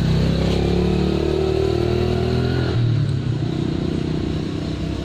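A motor vehicle engine running, its note gliding slowly in pitch, with a change in its sound about three seconds in.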